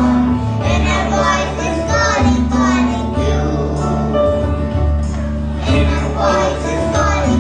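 A group of young children singing together in unison, with music accompaniment carrying steady low notes underneath.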